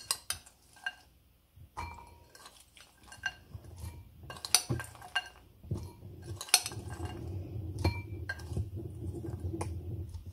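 Kitchen dishes and glassware being handled: a series of sharp clinks and knocks, some with a brief ring, and a denser low rustling rumble in the second half.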